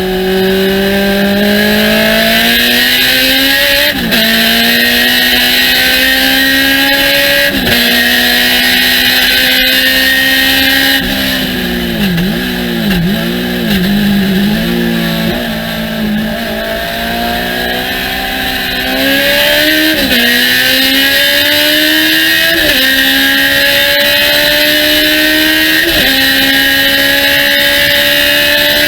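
Thunder Roadster race car engine at full throttle, its pitch climbing steadily and dropping at each upshift every few seconds. In the middle the revs fall and swing up and down a few times, as when braking and downshifting for a corner, before it pulls hard through the gears again.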